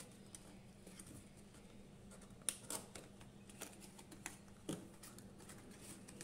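Faint rustles, scrapes and light taps of a cardboard perfume box being opened by hand as its inner card tray slides out, with a few sharper clicks about two and a half and nearly five seconds in, over a low steady hum.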